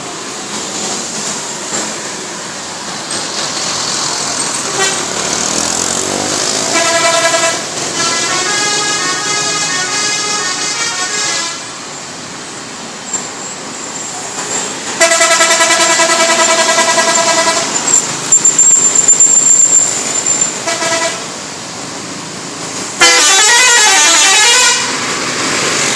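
Bus telolet horn, the Indonesian multi-tone musical horn, sounding in about four bursts: a run of changing notes, a long held chord, a short toot, and a warbling burst near the end, over steady background noise.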